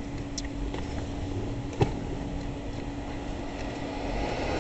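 Steady low background rumble with a faint steady hum that stops near the end, and a single sharp click just under two seconds in.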